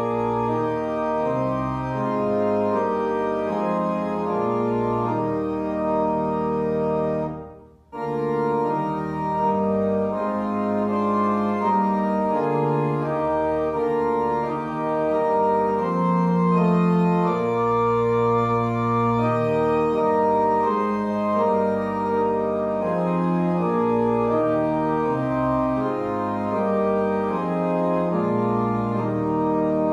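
Organ playing a slow piece in sustained chords, breaking off briefly about eight seconds in and then going on.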